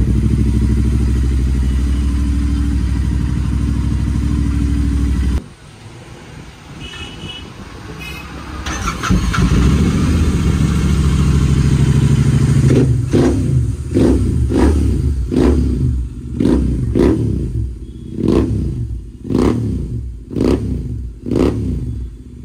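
Royal Enfield GT650's 648 cc parallel-twin engine with aftermarket exhausts, running loud and then revved in a string of short throttle blips, about one a second, through the second half.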